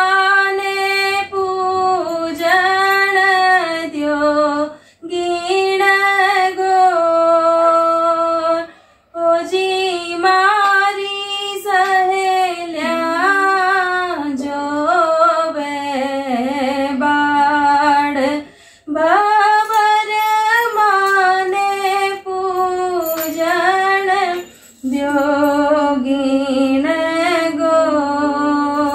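A woman singing a Rajasthani Gangaur folk song unaccompanied, in long held, bending phrases with a few short breathing pauses.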